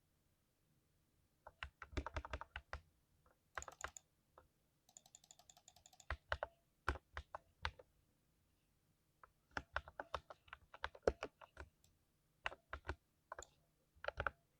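Typing on a keyboard with thick keycaps: sharp key clicks in bursts separated by short pauses, with a quick, even run of ticks about five seconds in.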